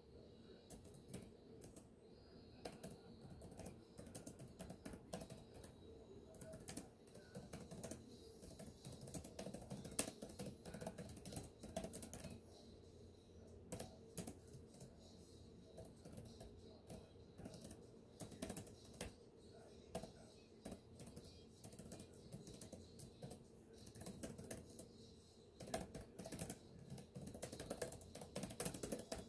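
Typing on a computer keyboard: runs of quick keystrokes with short pauses between them, the clicks thinning out for a few seconds twice midway.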